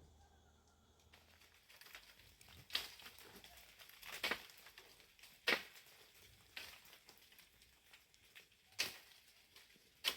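Dry twigs and leaves crackling and snapping. There are about six sharp cracks at uneven intervals, with faint crinkling between them.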